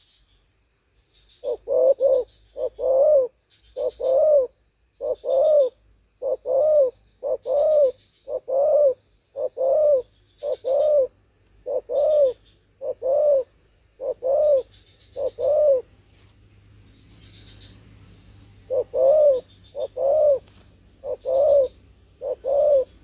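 Spotted dove cooing: a long run of short, low coos, mostly in pairs and about one a second, breaks off for a few seconds and then resumes for four more near the end. A steady high insect buzz runs behind it.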